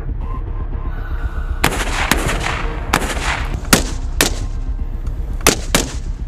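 A string of about nine sharp rifle shots, some in quick pairs, each ringing out briefly, fired in a ballistic test on an armoured SUV. Music with a deep bass bed runs underneath.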